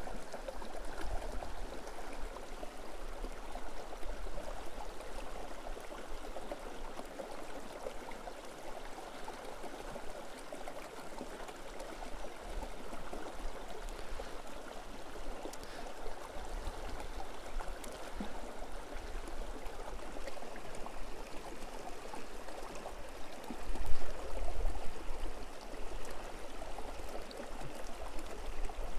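Rocky mountain river running, a steady, even rush of water over stones. A brief low rumble stands out near the end.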